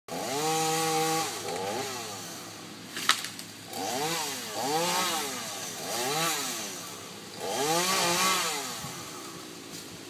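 Chainsaw revving: held high for about a second, then rising and falling again in several separate bursts. A single sharp crack sounds about three seconds in.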